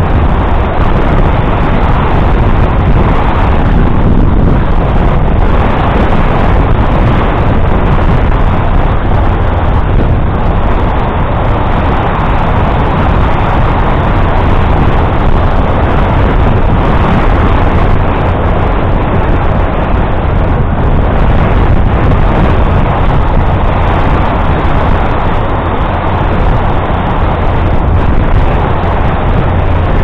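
Loud, steady wind noise rumbling on the microphone of a camera carried on a moving bicycle.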